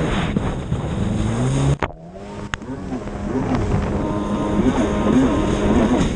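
Racing engine of a watercross machine running hard across open water, its pitch rising and falling with the throttle. Its sound drops off sharply about two seconds in and then builds back up.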